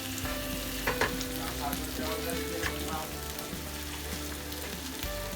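Pasta being stirred and tossed in a hot pan of creamy pesto sauce: a steady sizzle with a few sharp knocks and scrapes of the utensil against the pan.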